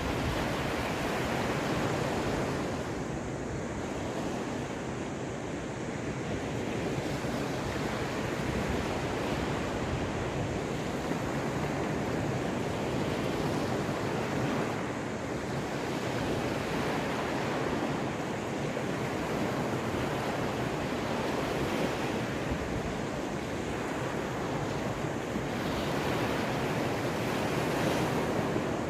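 Waves of the Caspian Sea breaking and washing on the shore in steady surf that swells and eases every few seconds, with wind buffeting the microphone.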